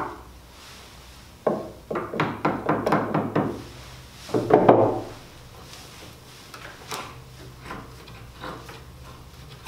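Wooden knocks and clicks as hardwood blocks are set in place and held with a bar clamp: a knock at the start, a quick run of sharp clicks about two seconds in, a longer, louder clatter near the middle, then lighter taps.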